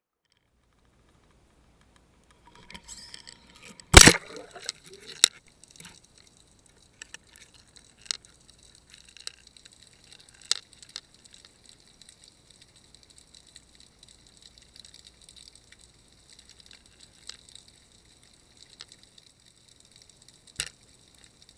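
Underwater sound from a submerged fish camera: one loud knock about four seconds in, then scattered clicks and ticks over a faint high hiss.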